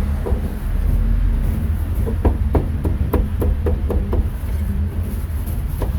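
Cleaver chopping pork on a wooden chopping block: a run of quick blows, about three a second, starting about two seconds in, over a steady low rumble.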